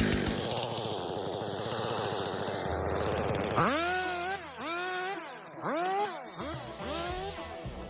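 Jonsered CS2255 two-stroke chainsaw running, quieter than the cutting before it; about three and a half seconds in, music with a repeating gliding melody takes over.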